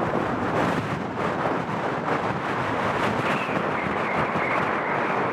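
Embraer jet airliner's turbofan engines on final approach, mixed with strong gusty wind buffeting the microphone. A faint engine whine rises into the roar about three seconds in.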